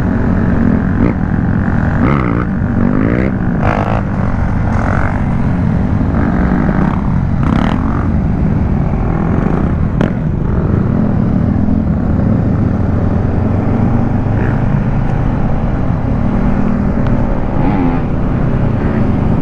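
Honda CBR500R's parallel-twin engine running steadily under way, with a dense low rush of noise. A few short sharp sounds break in during the first half.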